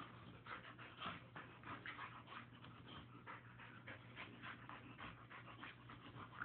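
Boxer dog panting faintly in quick, short breaths, about three or four a second.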